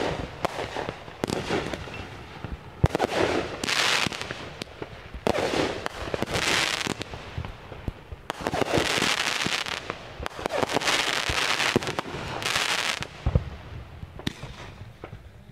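Aerial fireworks going off: a string of sharp pops and bangs, the loudest about three seconds in, with several bursts of crackling hiss lasting about a second each.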